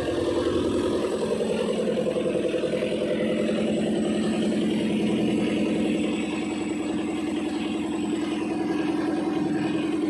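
Diesel engine idling steadily with a low, even hum.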